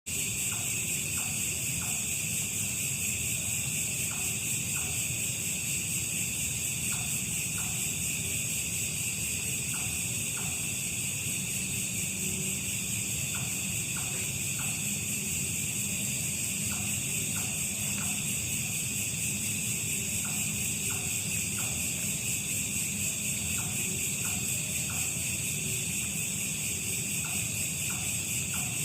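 Steady, high-pitched chorus of insects at night, with short falling calls in groups of two or three every few seconds over a low rumbling background.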